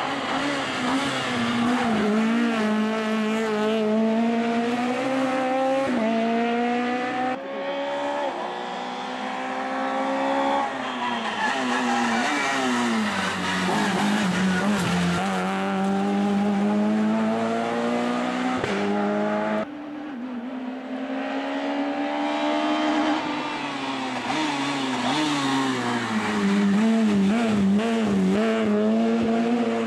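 Rally car engine working hard, its pitch repeatedly climbing and dropping back through the gears as it brakes and accelerates. The sound cuts off abruptly twice, about seven and twenty seconds in.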